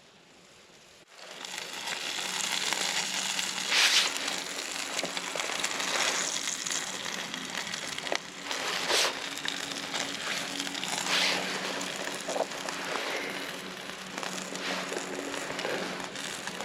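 Sausages frying over a wood-burning stick stove: a steady sizzle that starts suddenly about a second in, with sharper spits and crackles now and then.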